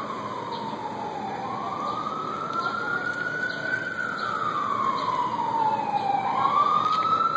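Emergency vehicle siren wailing, its pitch slowly rising and falling in long sweeps and growing louder as it comes closer, over steady street traffic noise.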